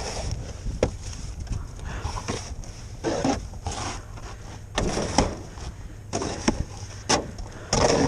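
Irregular scrapes and crunches in snow, with a person breathing hard and a low wind rumble on the microphone.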